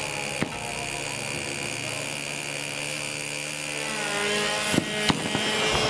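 Small fuel engine of an RC model airplane running with a steady buzzing drone that rises in pitch about four seconds in, with a few sharp cracks near the end.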